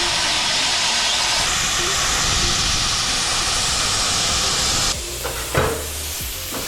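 Plasma cutter cutting sheet steel: a steady, loud hiss of the torch's air and arc. About five seconds in the cut stops and a quieter hiss carries on, with a brief knock.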